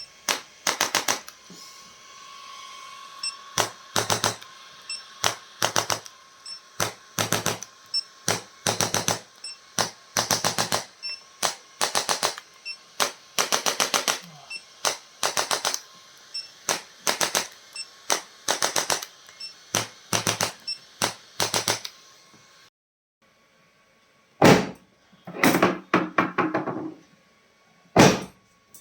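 Short bursts of rapid, sharp clicks, a few clicks in each burst, repeating about once or twice a second over a faint steady tone. The clicking stops for about two seconds near the end, then resumes in heavier bursts.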